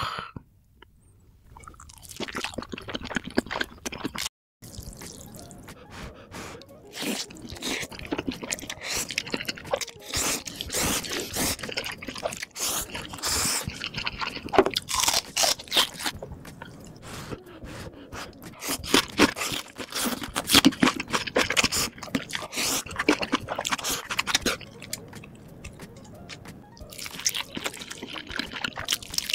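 A person eating crunchy sauced fried chicken close to the microphone: irregular crunches as the coating breaks, with wet, sticky chewing between them. The sound drops out briefly about four seconds in.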